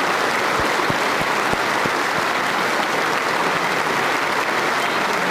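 Audience applauding steadily, with a few dull low thumps in the first two seconds.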